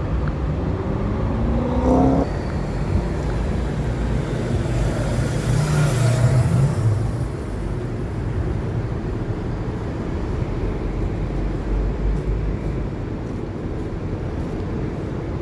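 Road traffic running steadily, with a vehicle's rising engine note about two seconds in and a car passing close by around the middle, its noise swelling and then fading.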